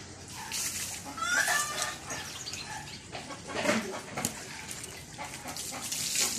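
Backyard fowl clucking and calling, some calls rising in pitch, mixed with short scuffling noises.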